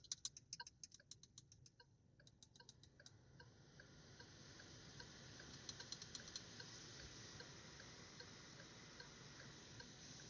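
Climate-control fan speed being clicked up in a 2023 Geely Emgrand's cabin: a run of quick clicks, then the ventilation fan's air rush builds at about three and a half seconds and holds at maximum speed. A faint regular ticking, about two or three a second, runs alongside.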